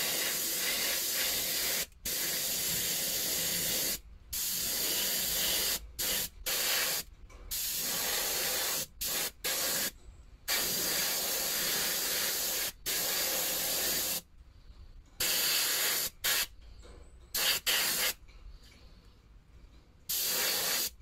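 Airbrush spraying paint in a string of hissing bursts as the trigger is pressed and released, some about two seconds long, others a fraction of a second, each starting and stopping sharply. It is laying a full covering coat on a small part, with shorter, sparser bursts near the end.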